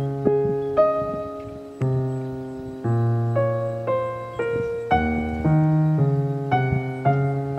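Background piano music: a slow melody of single struck notes and chords, each one fading away before the next.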